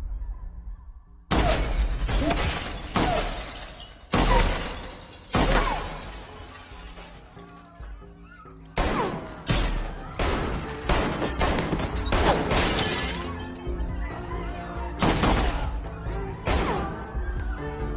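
Action-film gunfight: a string of sharp gunshots and shattering glass, about a dozen sudden loud hits at irregular intervals over a music score.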